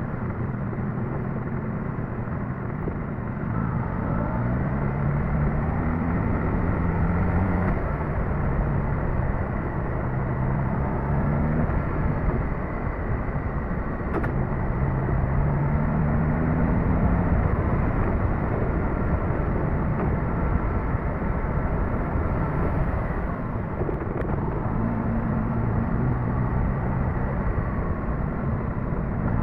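Suzuki GSX-S1000GT's inline-four engine on the move, its revs climbing and easing off three times, over a steady rush of road noise.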